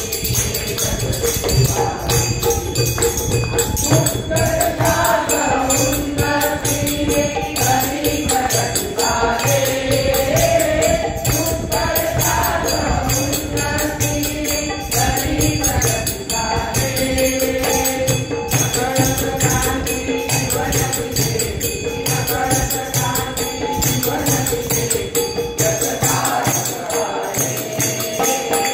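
A group singing a Marathi devotional song (sfurti geet) together through a microphone, over a steady clapping beat.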